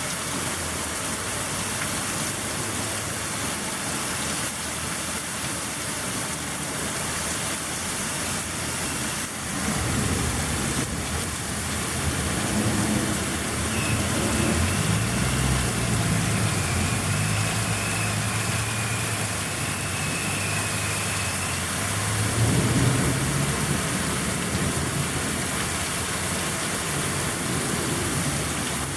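Heavy rain falling in a storm, a steady loud hiss. From about ten seconds in a low rumble joins it and carries on, loudest a little past the middle.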